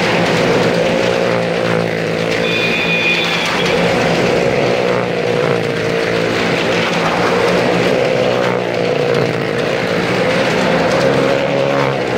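Motorcycle and car engines running continuously as two motorcycles and a car circle the vertical wooden wall of a well-of-death drum. The engines make a steady, loud drone that rises and falls a little in pitch.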